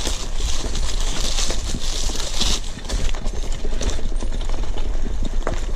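Bicycle rolling downhill on a forest trail: tyres crackling over dry fallen leaves, then crunching on dirt and stones, with the bike rattling over bumps and a low wind rumble on the microphone. The leaf crackle is brightest in the first two or three seconds.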